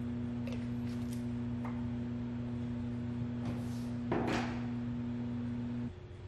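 Over-the-range microwave oven running with a steady electrical hum. A louder knock and rattle comes about four seconds in as the door is handled, and near the end the hum cuts off suddenly as the door is opened and the oven stops.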